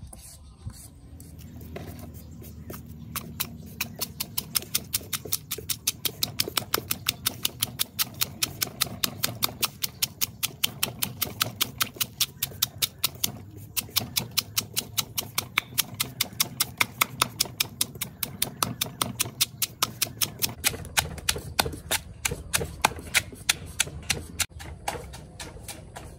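Wooden pestle pounding in a heavy mortar: a steady beat of sharp strikes, about three to four a second, starting about two seconds in.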